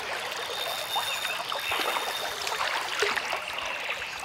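River water running and rippling steadily, with a few small splashes as a hooked fish is drawn across the surface.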